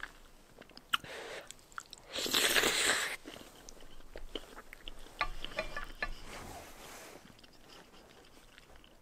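A person eating spicy instant noodles: one loud slurp lasting about a second, a couple of seconds in, with quieter chewing and a few small clicks around it.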